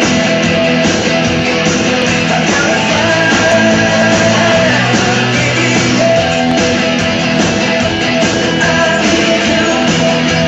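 Country music with guitar, playing steadily and loudly without a break.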